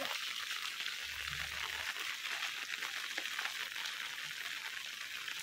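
Steady hiss of rain falling on wet pavement.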